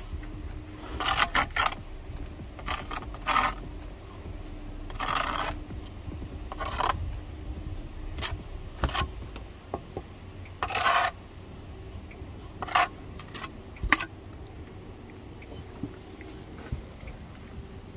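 Steel brick trowel scraping along bricks and mortar and clinking against the bricks as they are laid: irregular short scrapes and sharp taps, with the sharpest tap late on.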